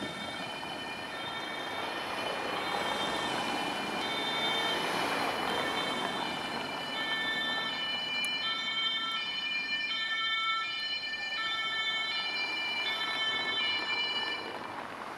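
German police patrol car's two-tone siren (Martinshorn), alternating between a high and a low note about every 0.6 s. It grows louder as the car approaches and stops shortly before the end, over traffic noise.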